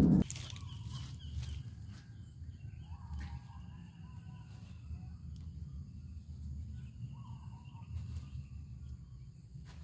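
Garden ambience: faint birds calling now and then over a low steady rumble, with a few soft rustles and snaps from a chili bush as its peppers are picked by hand.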